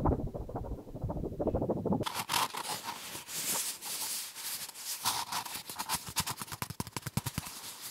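ASMR trigger sounds. First comes a muffled, low rubbing. Then, about two seconds in, it changes to rapid, crisp scratching and tapping on a hard, round object, several quick strikes a second.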